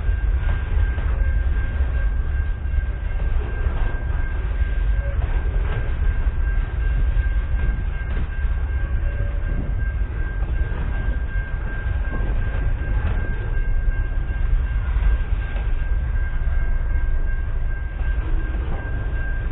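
Container wagons of a freight train rolling past close by: a steady, heavy rumble of wheels on rail, with a thin steady high whine over it.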